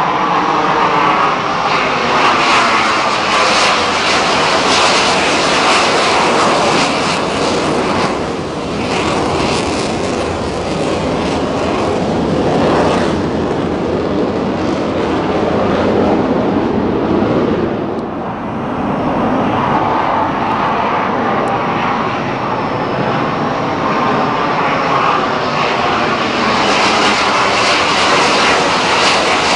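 Navy jet aircraft flying over, a loud continuous jet roar that dips briefly twice and swells again near the end.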